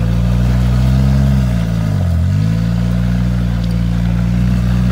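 Lifted Jeep Wrangler Unlimited engine working hard under load as it crawls over rocks. The revs hold high, drop briefly about two seconds in, then climb back and hold steady.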